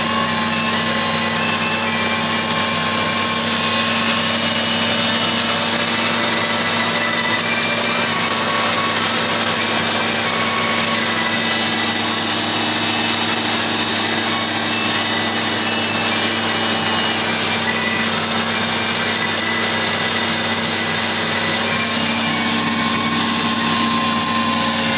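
John Deere 6920S tractor's diesel engine running steadily under load while ploughing, with a constant droning whine over broad mechanical noise.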